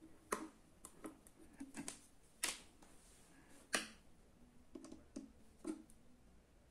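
Irregular light clicks and taps from hands handling multimeter probes and wires on a small DC-DC boost converter board, the sharpest about two and a half and nearly four seconds in.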